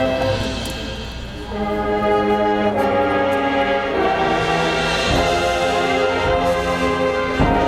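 Marching band's brass playing held chords: they thin out about a second in, then swell back in full. A single sharp percussion hit comes near the end.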